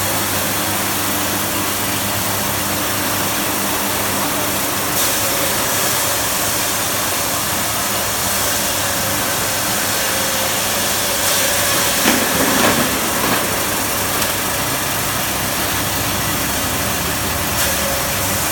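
Fish-bait cutting machine running steadily, chopping fish that have been dumped into it, with a brief louder, rougher patch about two-thirds of the way through.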